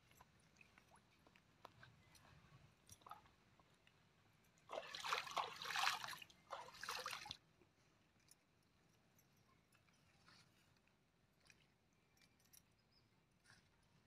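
Pond water splashing and sloshing in two short bursts about five and seven seconds in; otherwise only faint scattered ticks.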